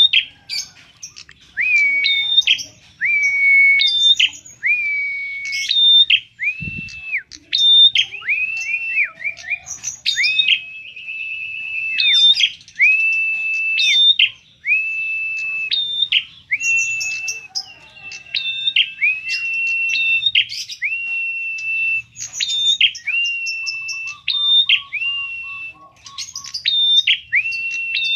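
Prinia (prenjak) calling over and over: each call a short high note that drops into a longer, steady whistled note, repeated about once a second. A single dull thump comes about seven seconds in.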